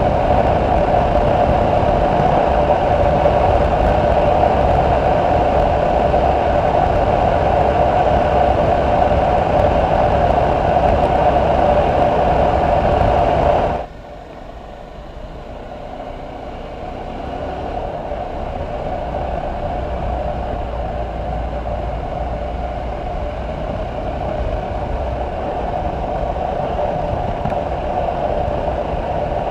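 Single-cylinder Romet ADV 250 motorcycle running at steady road speed, its engine drone mixed with wind rush on the bike-mounted microphone. About halfway through the sound cuts off suddenly and comes back quieter, building up over a few seconds to a steady run again.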